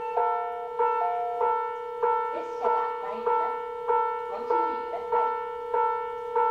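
Railway warning bell striking steadily, about one and a half times a second, each stroke a single ringing tone that dies away before the next. It is the alarm for the 2000 series Nanpū limited express approaching to pass through.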